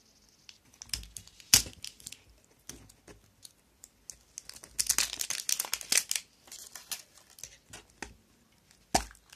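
Shiny printed wrapper crinkling and tearing as it is peeled off a plastic surprise egg, in irregular bursts of crackles that are densest around the middle. A sharp click comes near the end.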